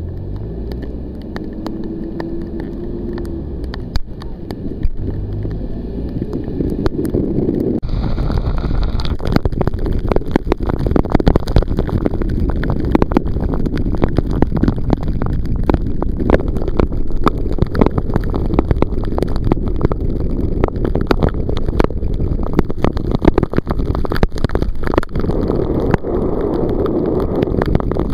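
A van driving fast in pouring rain, with the microphone out of the side window: wind buffeting and raindrops ticking against it over the engine and tyres on the wet road. About eight seconds in the sound turns suddenly louder and fuller.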